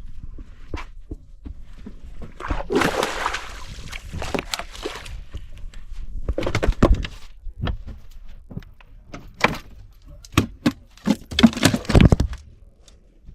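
Irregular knocks and thumps, some sharp and some heavy, with a rushing noise between about 2.5 and 5 seconds in and a quick run of loud thumps near the end.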